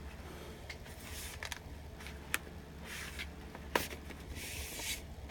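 Soft rustling and scraping of a vinyl LP's paper and plastic sleeves being handled, with a sharp click about two seconds in and a louder one near four seconds. A low steady hum runs underneath.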